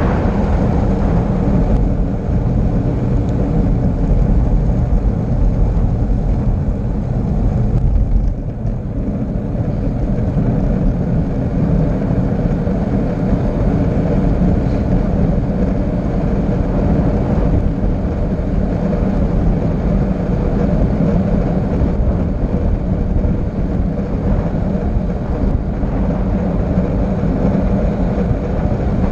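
Wind rushing loudly and steadily over the microphone at speed on a long downhill descent, a dense low rumble that eases briefly about eight seconds in.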